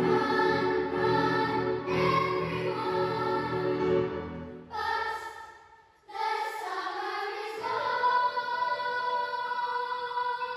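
Children's choir singing; the singing breaks off about five seconds in, starts again, and settles on a long held chord that dies away near the end.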